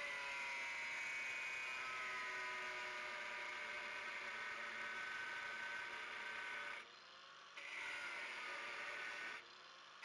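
Angle grinder with a cutting disc cutting into the steel inner race of an old wheel bearing: a steady whine whose pitch sags a little under load. The cut eases off briefly about seven seconds in and again near the end. It is cutting a shallow notch to loosen the race so it can be split off with a chisel.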